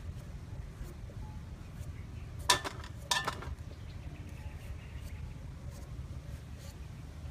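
A small knife paring the skin off a whole green papaya: faint scraping and cutting strokes, with two sharper bursts of scraping about two and a half and three seconds in, over a steady low rumble.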